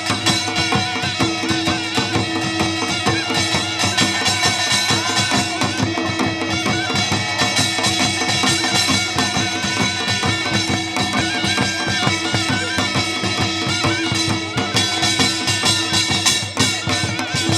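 Korean traditional folk music: drums and percussion beating a quick, dense rhythm, with a wind instrument holding and bending a melody over it.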